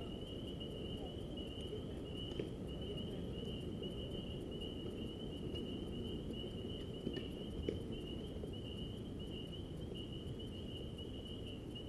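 A steady chorus of crickets trilling at one high pitch over a low background rumble, with a few faint clicks.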